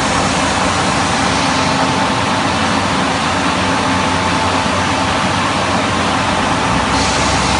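Tile-cutting line machinery running steadily: a loud, even mechanical noise with a faint steady hum, unchanging throughout.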